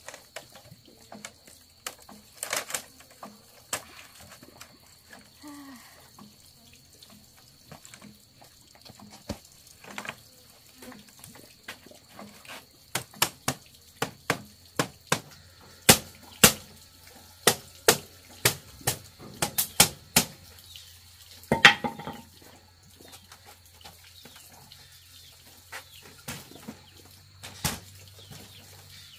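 Sharp knocks of a blade striking the split-bamboo edge of a woven bamboo panel: a few scattered strikes at first, then a quick run of about twenty strikes around the middle, with the loudest near the end of that run.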